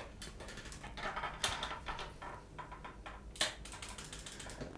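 Clicks and clatters from a homemade electric scooter's metal frame and fittings as it is handled and tipped up onto one end. There are two louder knocks, about one and a half and three and a half seconds in, and a quick run of ticks between them.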